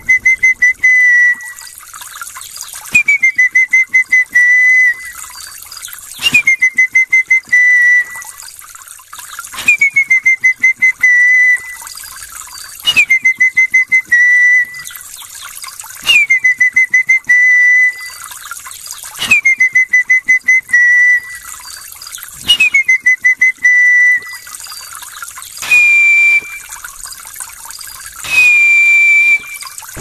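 Human whistled imitation of a Tanzanian bird's call. A phrase repeats about every three seconds: a quick downward slide into a held, rapidly pulsing note. Near the end come two shorter, higher, steady whistles.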